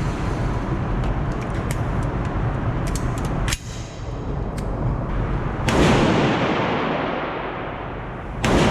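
Gunshots: several fainter sharp cracks, then two loud shots about three seconds apart, the first about two-thirds through and the second near the end, each trailing off in a long echoing decay.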